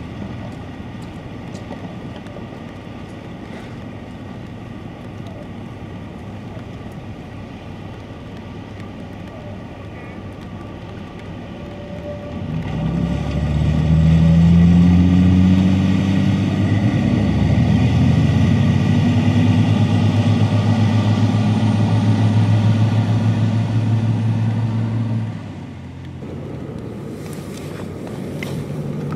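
Catamaran workboat's engines running low and steady, then opening up about twelve seconds in: a much louder engine note that rises in pitch and then holds steady, cut off suddenly near the end.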